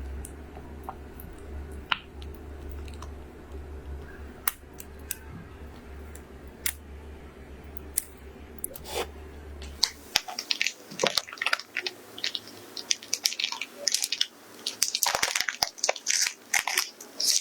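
Scattered sharp clicks and crunching over a steady low hum. About ten seconds in the hum cuts off, and the clicks and crackles become dense until the end.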